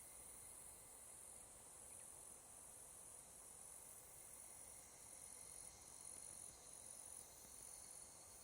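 Faint, steady high-pitched chorus of higurashi evening cicadas (Tanna japonensis) calling in the forest, swelling and dipping slightly in overlapping waves.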